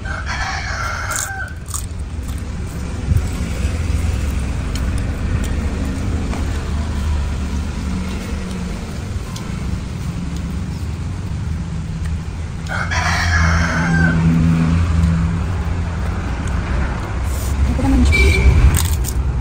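A rooster crowing twice, about a second in and again about 13 seconds in, over a steady low rumble.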